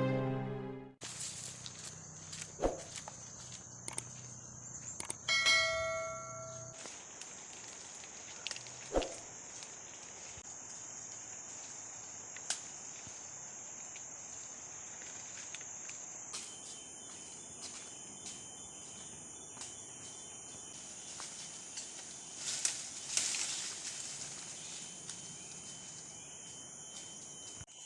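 Forest ambience: insects keep up a steady high-pitched drone, and a second, higher insect tone joins about halfway through. A few scattered footsteps and snaps in the undergrowth break in now and then.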